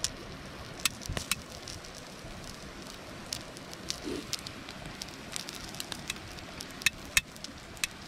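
Wood campfire crackling, with sharp pops scattered at irregular intervals, over a steady sizzle of marinated beef intestine (kotechan) grilling on an iron griddle plate.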